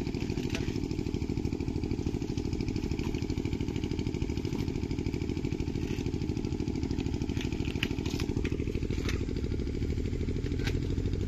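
An engine running steadily with an even, rapid beat, with a few short sharp clicks over it in the second half.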